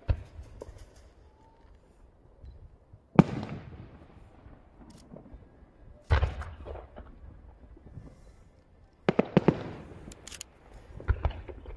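Firework shells bursting in the sky, heard from a distance: a sharp bang every few seconds, each trailing into an echo. The loudest comes about three seconds in, with a quick cluster of several bangs about nine seconds in.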